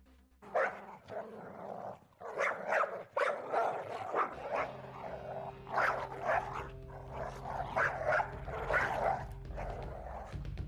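A dog barking repeatedly, in quick runs of short barks.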